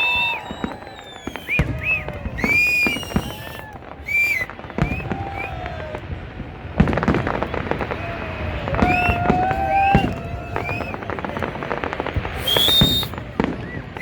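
Fireworks display: a dense run of bangs and crackling, with several short whistles that rise and fall in pitch.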